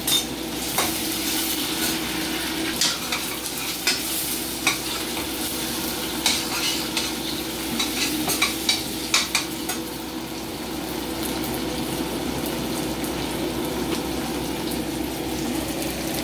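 Tomato, onion and tomato paste sizzling in a small stainless-steel saucepan on a gas burner while a spoon stirs it, clinking against the pan now and then during the first ten seconds or so.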